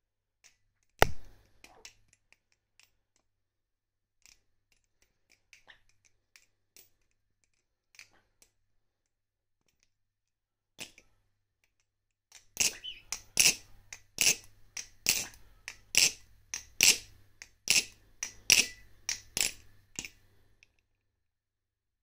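Balisong (butterfly knife) being flipped, its handles clacking against the blade and each other: a single loud knock about a second in, scattered soft clicks, then from about halfway a fast run of sharp clacks, about two a second, that stops shortly before the end.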